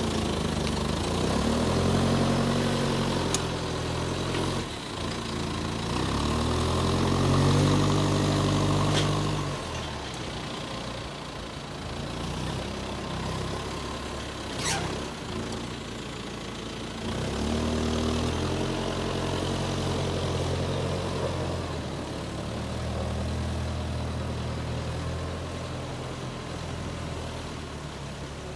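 John Deere 6430 tractor engine working a front loader. Its revs rise and fall several times, highest in the first third. A few sharp clicks are heard.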